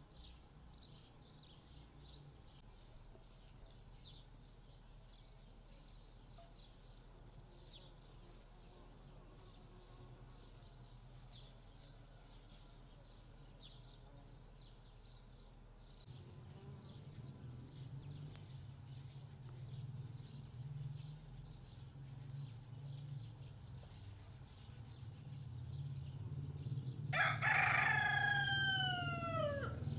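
A rooster crows once near the end, a long call sliding down in pitch. Before it come faint small-bird chirps and a low rumble.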